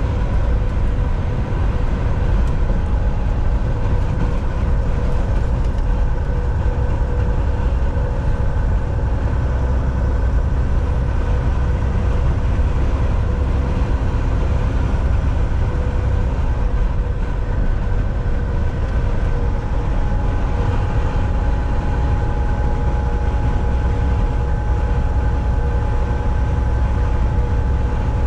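Volvo semi-truck driving at highway speed: a steady low engine drone and road rumble, with a few faint steady whining tones held throughout.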